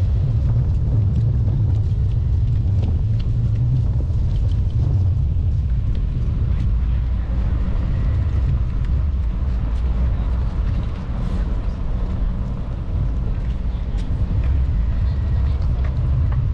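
Steady low rumble of wind buffeting the microphone and a bicycle rolling along a concrete path, with a few faint ticks.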